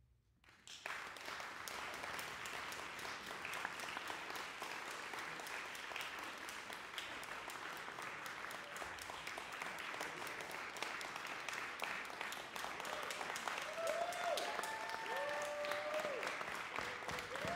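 Audience applauding, starting suddenly out of silence about half a second in and going on steadily. A few voices call out over the clapping near the end.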